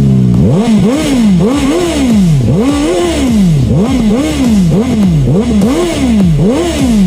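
Voge RR 500S motorcycle engine on its stock exhaust, revved in quick repeated throttle blips, about two a second, the pitch rising and falling with each one.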